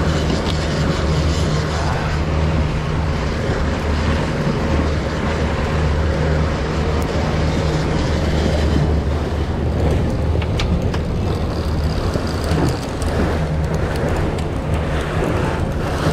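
Fishing boat's engine running steadily with a low hum, under a constant rush of wind and water.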